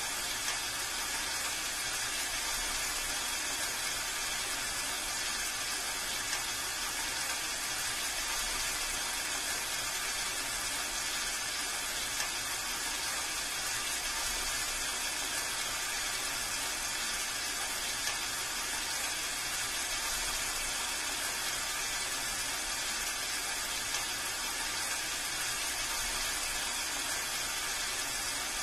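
Heavy rain falling steadily: a dense, even hiss of drops with no let-up.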